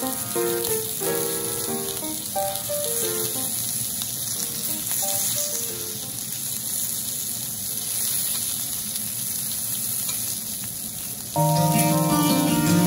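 Steak sizzling steadily on a hot black iron griddle plate. Light background music plays over it and grows louder near the end.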